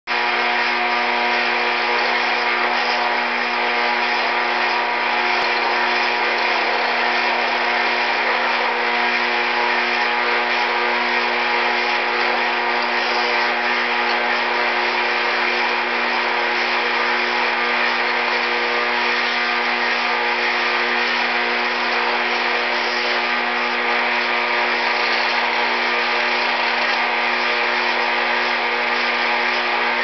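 Model railroad operating sawmill accessory running with a steady, unchanging electric buzz.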